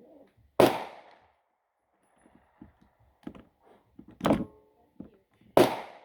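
Three gunshots, each a sharp crack with a short echo: one about half a second in, one about four seconds in and one near the end, with small clicks and knocks between them.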